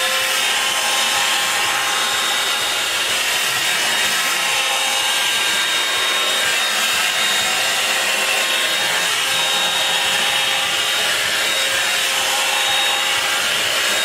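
Revlon Perfect Heat Perfectionist 2-in-1 dryer brush running on its cool setting: a steady rush of air with a high motor whine, while the brush is drawn through hair.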